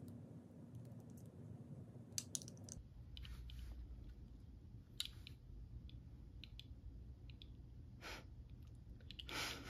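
Faint, scattered clicks and light rustling of a hair bead and locs being handled by fingers, over quiet room tone.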